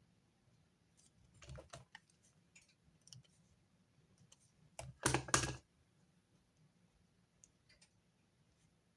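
Small clicks and taps of pens and stationery being handled on a desk during note-taking, with a louder short clatter about five seconds in.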